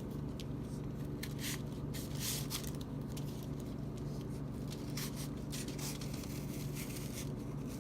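Freshly sharpened VG10 pocket knife slicing through a 12-layer stack of folded envelope paper: short papery swishes and scrapes, several in a row, over a steady low hum.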